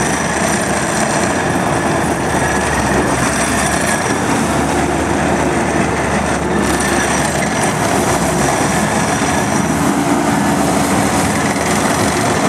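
Diesel engine of a Gehl CTL80 skid steer loader running steadily.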